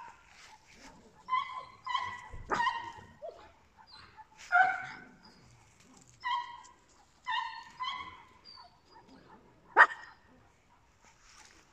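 A small dog barking and yipping, short high-pitched barks in irregular bunches with pauses between, and a single sharp bark near the end.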